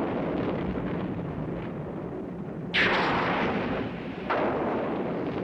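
Booming thunder-like crashes in a film soundtrack: a rumble rolls on from a crash just before, then a sharp crash comes about three seconds in and another about a second and a half later, each trailing off into a long low rumble.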